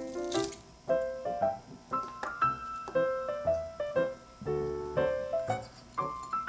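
Background music: a piano playing a melody of short, detached notes, several a second.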